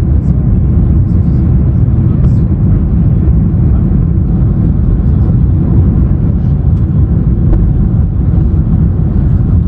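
Airliner cabin noise heard from a passenger seat: a loud, steady low rumble of the jet engines and airflow during the descent into landing.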